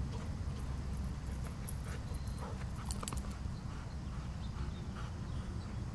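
A few faint, short sounds from dogs at play over a steady low rumble, with a few sharp clicks about three seconds in.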